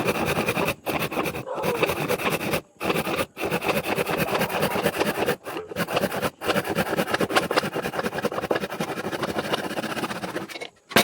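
Woodworking machinery running with a dense, noisy sound, breaking off abruptly for brief moments several times.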